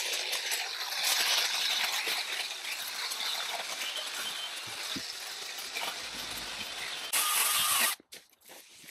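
Hedge trimmer running as its blades cut through dense leafy hedge: a steady crackling rush that swells briefly near the end, then stops abruptly about eight seconds in, leaving faint rustles and clicks of handled branches.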